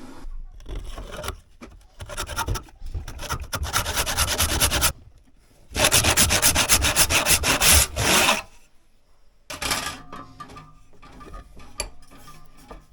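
Hand saw cutting a lengthwise slit into a hickory axe handle for the wedge: two runs of quick back-and-forth strokes with a short pause between them, then a brief burst and a few lighter strokes near the end.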